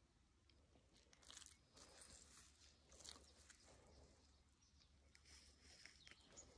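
Near silence, with a few faint short rustles.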